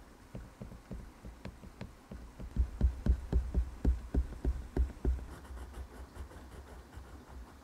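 Quick back-and-forth strokes of a drawing tool on paper, a scratchy rubbing at about four strokes a second, loudest in the middle and then fading away.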